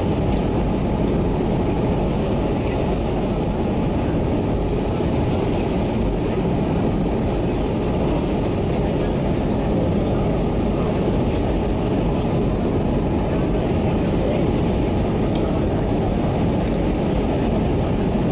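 Steady cabin noise of an Airbus A320 on approach, heard inside the cabin beside the wing. It is a low, even roar of the engines and the air rushing past the fuselage.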